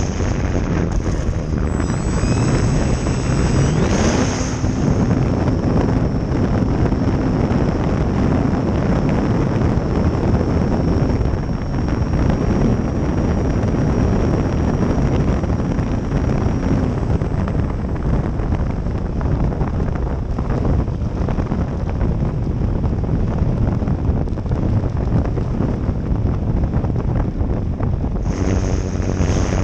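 Wind buffeting the microphone on an E-flite Valiant 1.3m RC plane, with the plane's electric motor and propeller winding up in pitch about two seconds in as it goes to takeoff throttle. The motor then holds a steady whine until it drops away about halfway through as the throttle comes back. The wind noise is the loudest sound throughout.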